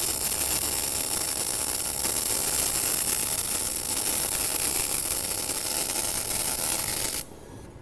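TOPGUN MIG 315VS MIG welding arc running steadily on 8 mm steel plate, set to about 180 A and 22 V. It cuts off suddenly near the end as the bead is finished.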